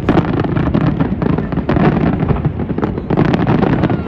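Fireworks going off in a dense, continuous barrage: many sharp bangs and crackles in quick succession over a deep rumble.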